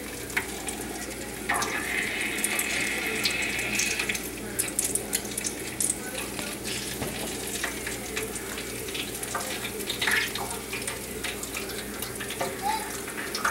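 Battered corn dogs deep-frying in hot oil: a steady sizzle with scattered crackles and pops, louder for a couple of seconds near the start.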